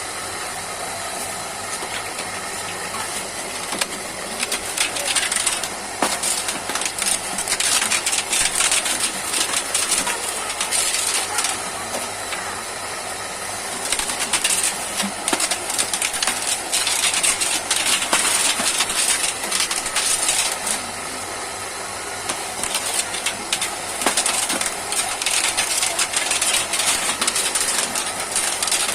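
Silicon steel strip cutting machine for toroidal transformer cores running, with three long spells of dense metallic crackling and clicking as it cuts, between quieter stretches of steady mechanical hiss.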